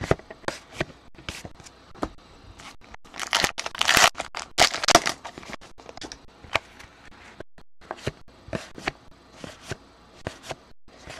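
Paper trading cards being slid and flipped against one another, many small clicks and snaps. About three to five seconds in comes a louder stretch of crinkling and tearing, the sound of a card pack's wrapper being torn open.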